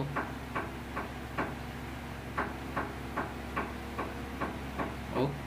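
Steady, even ticking, about two to three ticks a second, like a clock, over a low steady hum, with one slightly louder knock near the end.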